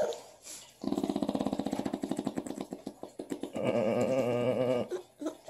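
A baby growling in the throat: a rapid, rattling growl for about two seconds, then a steady held note for about a second.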